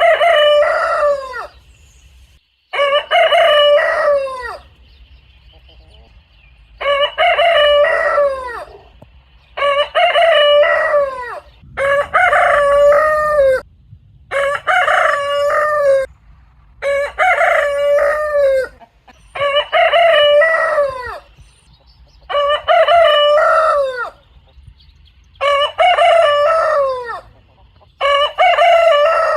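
Rooster crowing: about eleven cock-a-doodle-doo crows, each one and a half to two seconds long and dropping in pitch at its end, following one another every two to three seconds.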